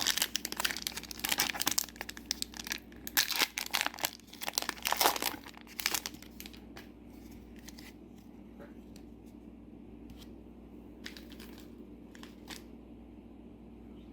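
Foil trading-card booster pack wrapper being torn open and crinkled, a dense rustling crackle for about the first six seconds, followed by a few soft ticks of cards being handled.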